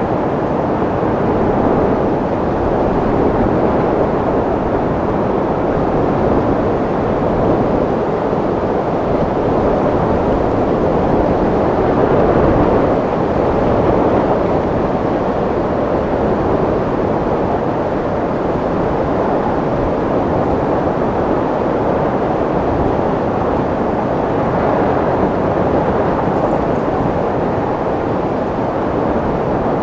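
Wind blowing steadily with a deep rushing noise, swelling and easing slightly but never dropping away.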